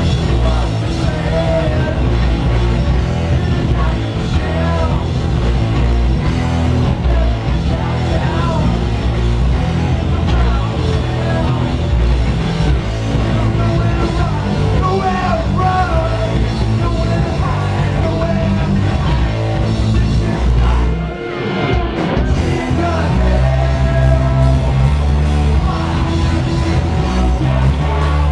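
Live heavy metal band playing loud, with two electric guitars, bass guitar and drums and a singer's voice over them, heard from the audience. The band drops out briefly about 21 seconds in, then comes back in at full volume.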